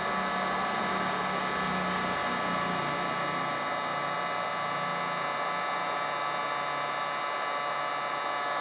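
Butane hot air torch running steadily: a constant hiss with a high whine.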